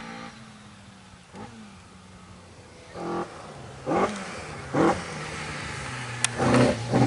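Mk2 Ford Escort rally car approaching at speed on a tarmac stage, its engine revving hard. The note climbs and drops several times through the gears and grows louder as the car nears.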